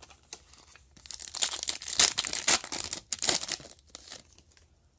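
Wrapper of a Panini Status basketball card pack being torn open and crinkled by hand, a run of crackling tears lasting about three seconds.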